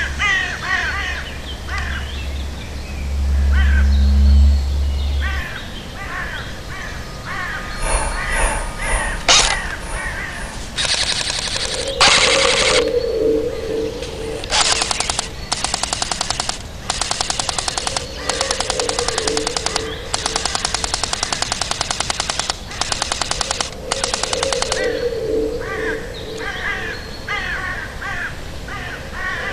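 Crows cawing, then from about a third of the way in, long repeated bursts of rapid full-automatic gunfire, eight or so bursts each lasting one to two seconds.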